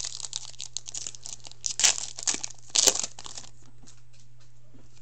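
A trading-card pack's foil wrapper being torn open and crinkled by hand: a run of crackly rips, two of them louder about two and three seconds in, dying down over the last second or so.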